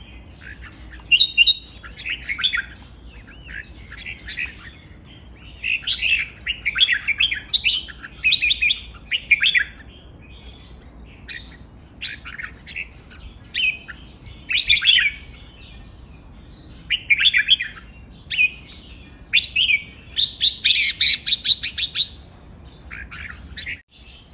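Caged red-whiskered bulbuls singing: loud, chirpy phrases again and again with short pauses between them, and a longer run of quick repeated notes near the end.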